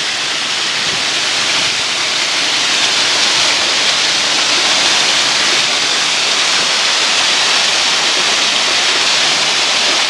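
Small waterfall splashing down a rock face: a steady rushing of water that grows a little louder over the first two seconds, then holds even.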